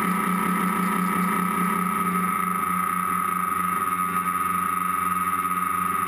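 Tricopter's electric motors and propellers running in flight, heard from the onboard camera: a steady high whine over a low pulsing drone.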